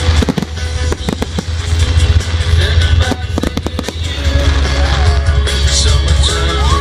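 Fireworks bursting in clusters of sharp bangs and crackles, near the start and again about three seconds in, over loud music with a heavy bass line.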